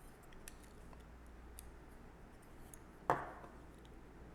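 Small metallic ticks and clicks as the pins and springs are taken out of a mortise lock cylinder, with one louder click about three seconds in.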